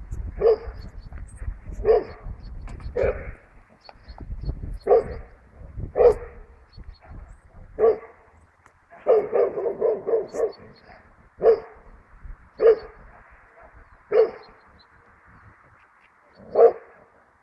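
Dog barking: single barks every second or two, with a quick run of about six barks just past the middle.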